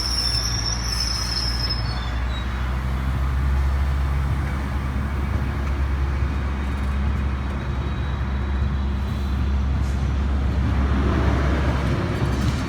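Passenger train passing close by, its diesel locomotive engine running steadily under a loud rumble of wheels on rail. A high-pitched wheel squeal fades out about two seconds in.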